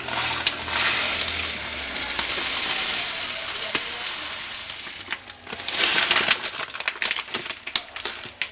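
Coarse dishwasher salt being poured from its bag through a funnel into a dishwasher's salt reservoir: a hissing rush of grains in two long pours, with scattered clicks and taps of the grains and funnel.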